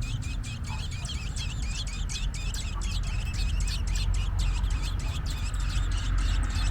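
American robin calling in a fast, even series of short high chirps, about four or five a second, over a steady low rumble.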